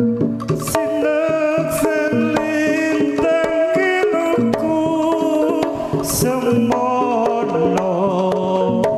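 Javanese jaranan ensemble music, played loud through a sound system: drumming under a stepped melody on tuned percussion, with a few sharp bright hits.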